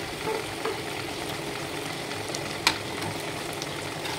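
Thick tamarind fish curry boiling in an open pan: a steady bubbling hiss with small pops, and one sharper click a little past halfway.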